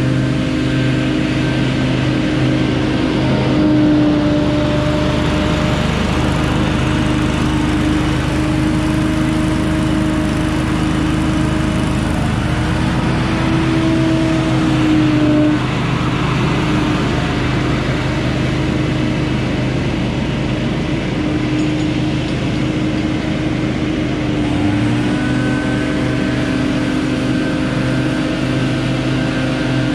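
Leaf blower engine running steadily, its pitch wavering slightly now and then.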